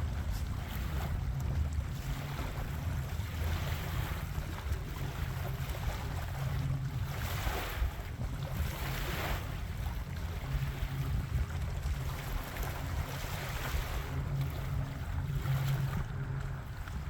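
Wind buffeting the microphone, a low rumble that comes and goes, with a rushing that swells twice as gusts pass over the water.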